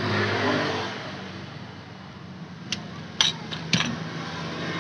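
Sharp metallic clinks of scooter centrifugal-clutch parts and tools being handled and set down on a cardboard-covered bench, four quick ones in the second half, over a steady low hum.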